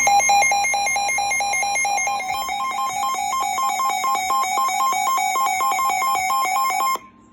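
Electronic alert beeping in a rapid, even train: a single repeated pitch at first, then alternating between two pitches from about two seconds in, cutting off sharply near the end. It is a weather-alert alarm signalling an incoming severe weather warning.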